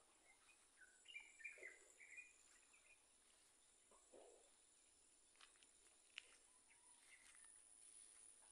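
Quiet outdoor ambience with faint bird chirps about a second in, a few soft clicks, and a steady faint high insect-like hum.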